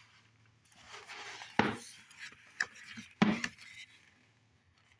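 Pages of a paperback book being turned and handled, the paper rustling, with two sharp clicks about a second and a half apart.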